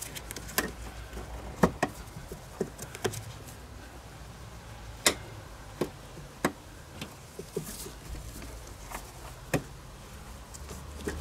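Sparse, irregular light clicks and taps, about a dozen: an accelerator cable being pulled through its hole in the car's bulkhead, the cable and its sheath knocking and rubbing against the metal as it is handled.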